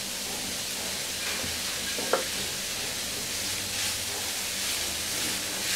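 Chicken, onion and vegetable filling sizzling in a frying pan as it is stirred with a plastic spatula, with one light knock about two seconds in.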